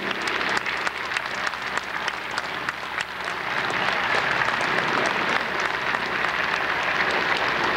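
Large crowd applauding, the clapping growing louder and denser from about three seconds in.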